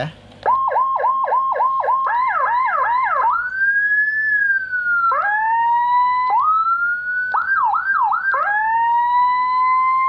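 Whelen HHS2200 replica 200-watt electronic siren in automatic mode, cycling through its tones on its speaker. Rapid repeated chirps quicken into fast sweeps, then a slow rising-and-falling wail, then rising tones, another quick run of sweeps, and a long slow rise.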